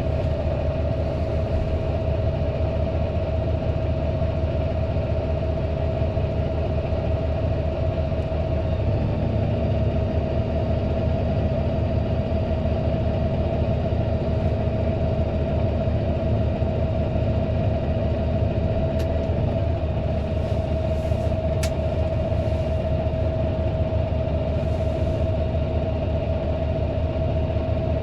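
Fendt 936 Vario tractor's six-cylinder diesel running steadily under load, a low rumble with a steady high whine over it and a few faint clicks.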